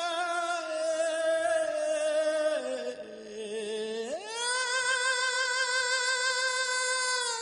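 A woman's solo singing voice in a Hindi film song: a phrase that falls in pitch, then about four seconds in a long high note held with vibrato that stops suddenly.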